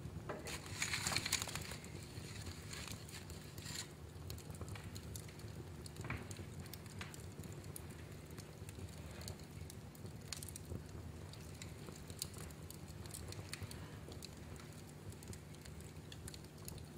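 Wood fire crackling in a fireplace: scattered sharp pops and snaps, with a louder flurry of crackles about a second in, over a steady low rumble.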